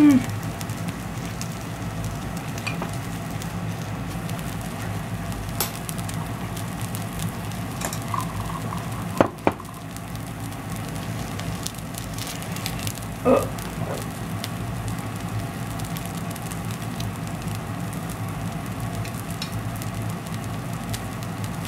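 Takoyaki sizzling in a takoyaki pan on the stove: a steady frying hiss over a low hum, with a few light clicks.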